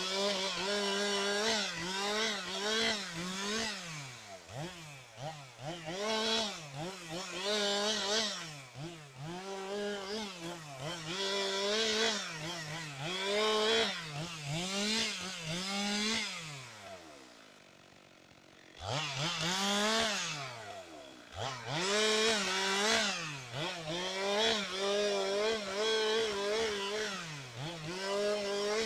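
Chainsaw engine running at high revs, its pitch dipping and recovering again and again about once a second. Past the middle the engine winds down and falls quiet for about two seconds, then revs back up and carries on with the same dipping pattern.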